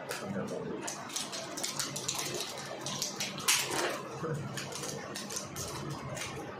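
Crackling and clicking of a boxed chess set's packaging being handled and opened: a run of short rustles and clicks, with one louder rustle about three and a half seconds in.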